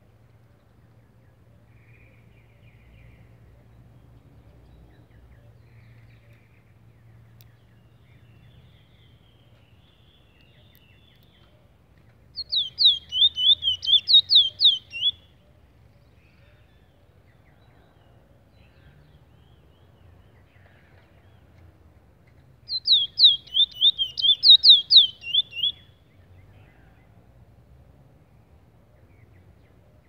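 Caged Trinidad bullfinch singing two short, loud phrases about ten seconds apart. Each phrase is a quick run of about ten high, down-sliding notes lasting about three seconds.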